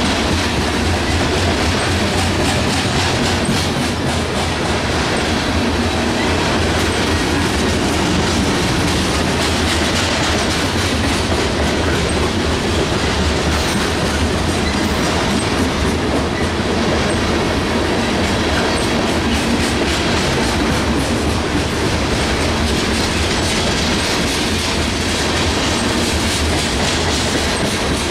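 Covered hopper cars of a freight grain train rolling past close by: a steady rumble of steel wheels on rail, with repeated clickety-clack as the wheels cross rail joints.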